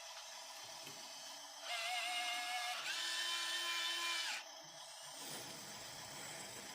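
Small electric motor of a 1:50 scale RC construction model whining for about three seconds, steady at one pitch and then dropping to a lower pitch partway through, over a faint steady hiss.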